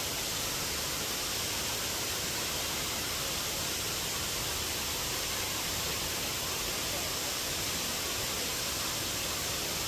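Waterfall rushing with a steady, even roar of falling water, unchanging throughout.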